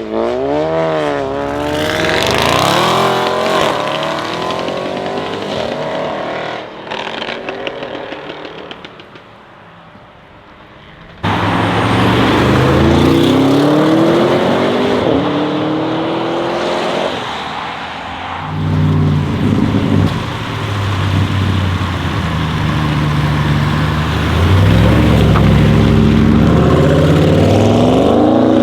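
Audi RS6 C8's twin-turbo 4.0 litre V8, with catless downpipes and the particulate filter deleted, revving and then accelerating hard with rising pitch before fading away. It cuts suddenly back to full loudness for another hard acceleration, then runs with repeated swells of throttle.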